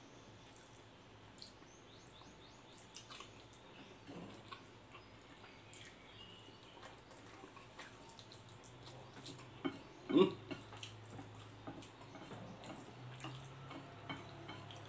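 A person eating instant noodles with chopsticks: quiet chewing, slurping and faint clicks of the chopsticks, with one louder slurp about ten seconds in, over a low steady hum.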